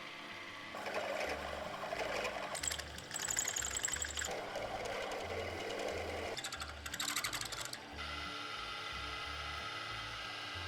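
A small machine or power tool running in several bursts of rapid mechanical chatter, then settling into a steadier running sound about eight seconds in.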